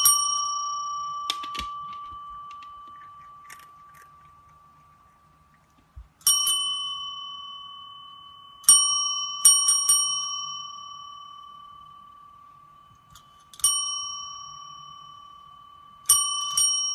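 Chrome desk bell rung by a cat pressing its plunger with a paw: a ring fading as it opens, then seven more dings at uneven gaps, some in quick pairs or threes, each ringing on and dying away over a few seconds.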